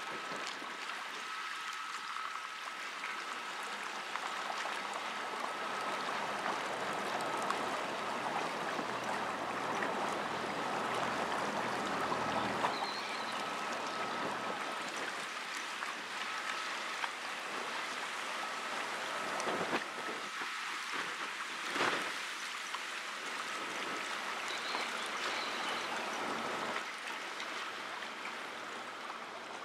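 Steady rush of river water washing and splashing, with a faint high steady tone behind it and two brief knocks about two-thirds of the way through.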